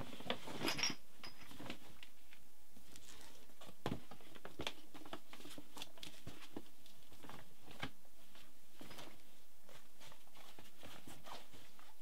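Rustling of bags and light knocks as items are handled and moved around, in short scattered bursts with the loudest rustles about a second in.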